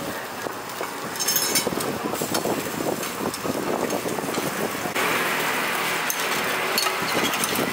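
Food frying on a flat-top griddle, a steady sizzle with metal spatulas and tongs clinking and scraping on the hot plate; the sizzle gets louder about five seconds in.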